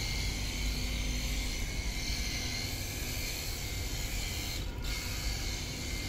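Cordless pressure washer's small electric pump running steadily while the gun sprays water, with a steady hiss from the jet. It breaks off for a moment about four and a half seconds in.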